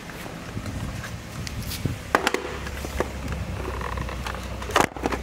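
Handling noise from a plastic digital tyre inflater and its cord being moved about: scattered clicks and knocks, the loudest near the end. A low steady hum comes in about halfway through.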